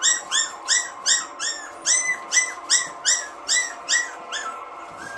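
Maltipoo puppy yipping: a rapid run of about a dozen high-pitched yips, about three a second, stopping about four and a half seconds in.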